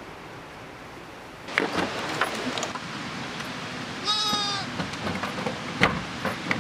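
Livestock bleating once, a short call about four seconds in, with a few sharp wooden knocks from a plank gate being handled before and after it.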